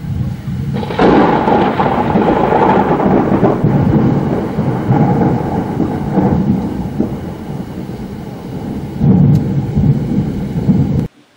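Loud thunder from a thunderstorm: it breaks about a second in and rumbles on for some ten seconds, swelling again near the end, then cuts off suddenly.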